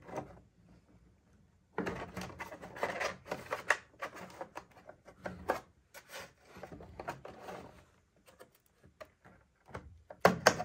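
Hands and a screwdriver working a truck side-mirror housing apart: irregular scraping, rubbing and clicking of plastic parts and the tool against them, with a few sharper clicks near the end.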